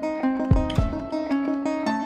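Music played on a plucked string instrument: quick runs of notes over a held low note, with two deep drum-like thumps about half a second in.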